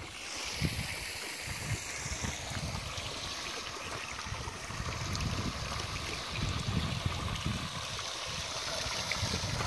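Spring water running steadily through a metal trough and spilling onto stones. Wind gusts buffet the microphone now and then.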